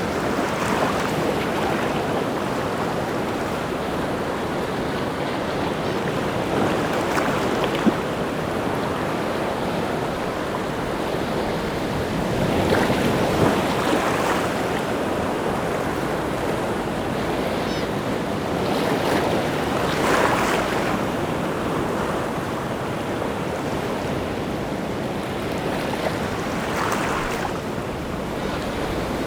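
Rough, wind-driven sea surf breaking on the shore: a continuous wash of waves that swells louder every six or seven seconds as each breaker comes in.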